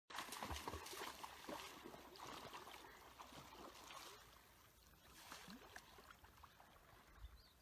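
Faint water lapping and splashing with a few sharper splashes, as from a paddle dipping into a lake. It fades somewhat after about four seconds.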